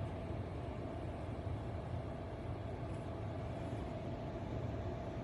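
Antarctic Star tower fan running: a steady rush of air with a faint, even hum.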